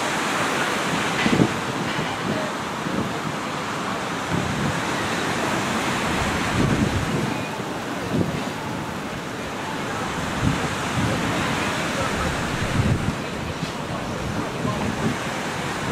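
Steady rush of wind and surf, with irregular gusts of wind buffeting the microphone.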